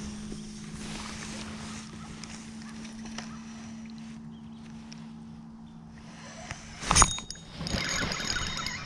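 A faint steady hum, then a sharp knock about seven seconds in, followed by a second of rustling and clattering: gear being handled aboard a fishing kayak.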